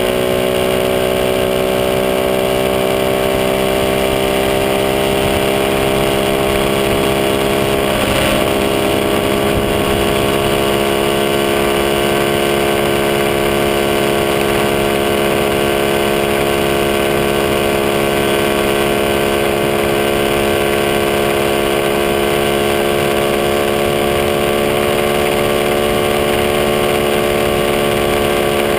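Small single-cylinder motorcycle engine running at a steady cruise, heard from the bike itself with wind and road noise over it. The engine note drifts only slightly, and a short rush of noise comes about eight seconds in.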